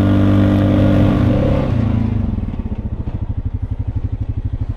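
A tracked ATV's engine runs steadily under way. About two seconds in, it gives way to a Honda ATV engine idling with a quick, even putter.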